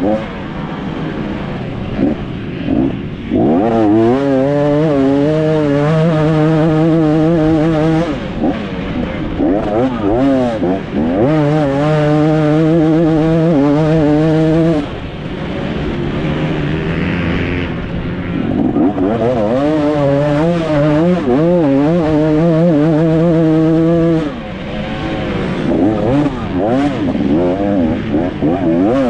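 2024 KTM 250 SX single-cylinder two-stroke dirt bike engine ridden hard: three long stretches held at high revs, each cut off suddenly as the throttle shuts, with the revs rising and falling between them.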